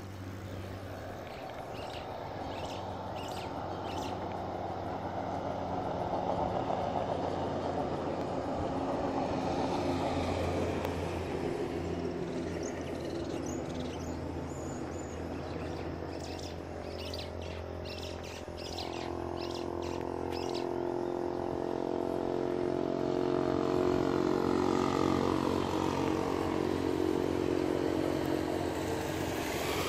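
Engines of passing road vehicles humming, swelling and fading twice and growing louder near the end as motorcycles approach, with birds chirping a few times.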